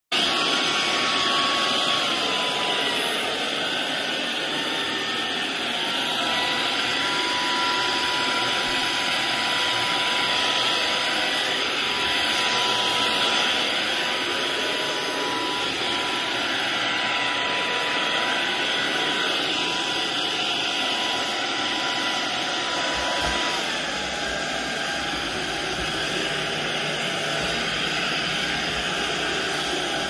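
Proscenic P11 cordless stick vacuum running steadily as its motorised floor brush is pushed over carpet and then a hard floor: a rush of air with a steady motor whine whose pitch shifts slightly a few times.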